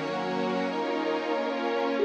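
Soft, slow background music with sustained tones.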